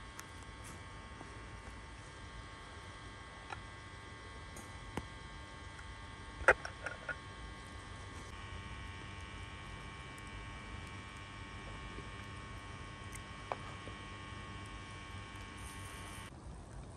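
A steady hum made of several high, even tones that cut off near the end, with a few light clicks and knocks from handling at the cooking fire. The sharpest knock comes about six and a half seconds in.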